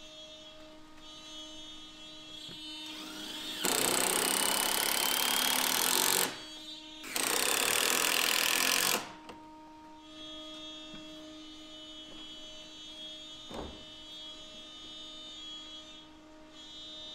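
Cordless drill driving screws into plywood, running in two bursts of about two and a half and two seconds, a few seconds in. A steady hum runs underneath, and a single knock comes near the end.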